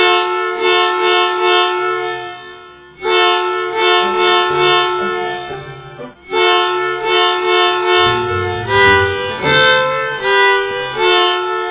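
Musical bus horn playing a tune: a loud two-note chord pulsing in short blasts, breaking off twice, then moving through changing notes near the end over a low hum.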